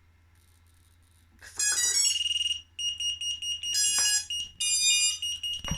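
A water-soaked quadcopter's electronics beeping on power-up from a 5S battery pack: a run of high electronic tones and beeps, with one steady high tone, starting about a second and a half in. The beeping is the sign that it still powers up after getting wet.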